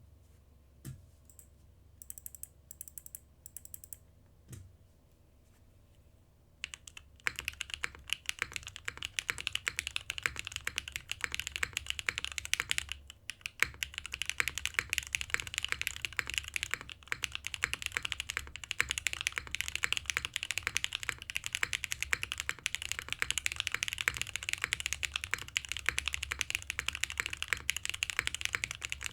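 Typing on a Merisi Sessantacinque top-mount mechanical keyboard with a carbon fiber plate, lubed Zaku switches and GMK keycaps. A few scattered key clicks come first. From about seven seconds in, a fast, continuous run of clacky keystrokes follows, with a brief pause near the middle.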